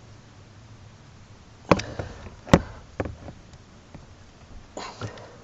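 Crimping tool clacking as its dies close on a terminal on heavy battery cable. Two loud sharp clacks come about two seconds in, followed by several lighter knocks.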